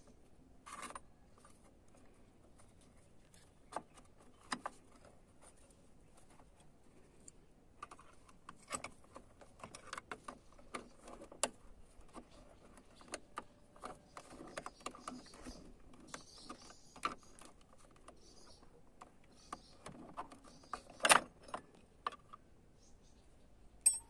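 Scattered small metal clicks and clinks as a BMW E36 door latch striker is handled and fitted back onto the door pillar, held by a temporary bolt and worked with a long metal tool. The loudest clatter comes about 21 seconds in.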